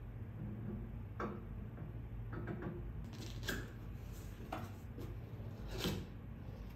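A handful of short scrapes and taps from a cardboard box being handled and its flap pulled open, the loudest scrape coming near the end. A steady low room hum runs underneath.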